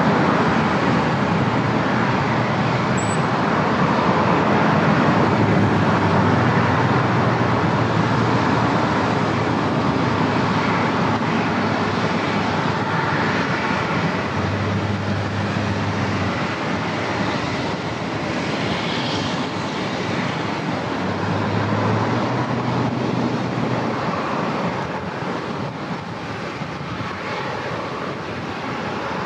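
Passenger jet airliner engines: a loud, steady rush of jet noise with a low hum underneath, slowly dying away.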